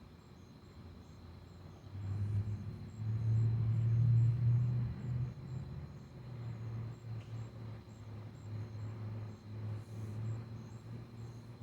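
Low engine rumble of a distant passing vehicle. It swells about two seconds in, is loudest around four seconds, then eases off but lingers. Night insects keep chirping in a steady high-pitched rhythm throughout.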